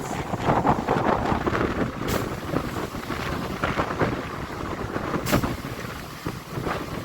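Running noise of an electric local train heard from inside the coach: a steady rumble and rush with wind buffeting the microphone. There are two sharp clicks, about two seconds and five seconds in.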